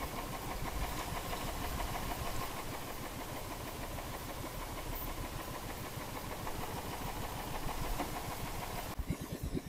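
Small engine of an outrigger boat running steadily while the boat is underway; the sound falls away sharply about nine seconds in.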